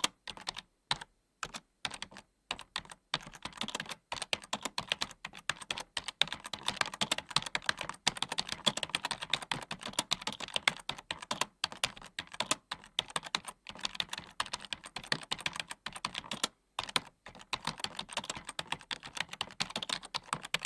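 Computer keyboard typing: rapid key clicks in uneven runs, sparse with short pauses for the first few seconds, then fast and nearly continuous with brief breaks.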